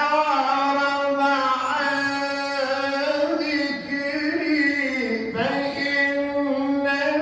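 A man chanting Quran recitation in a melodic style, drawing out one long unbroken vocal phrase whose pitch winds up and down, dipping briefly about five seconds in.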